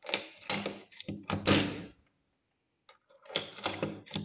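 Maglula UpLULA plastic magazine loader clacking as it is pressed down on a Glock magazine to push 9mm cartridges in, with cartridges clicking into place: three short groups of sharp clicks and knocks with a brief pause between the second and third.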